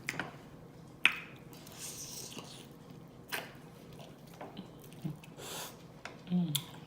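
Close-up mouth sounds of eating chicken wings: scattered wet lip smacks and sharp chewing clicks.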